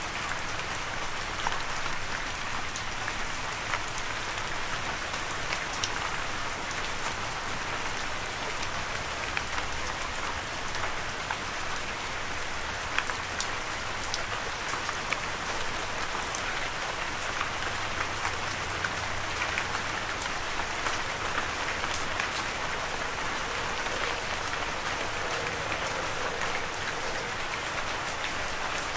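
Steady rain falling, a continuous even hiss with many small scattered drop ticks.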